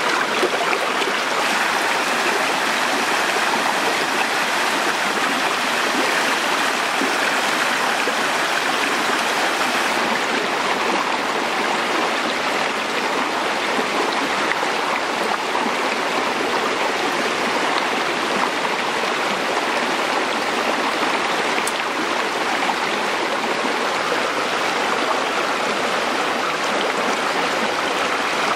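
Shallow rocky stream rushing and splashing over stones, a steady, unbroken rush of water.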